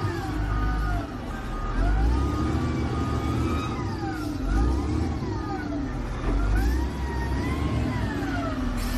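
An emergency siren wailing, its pitch sweeping up and down every second or two, over the low rumble of heavy engines.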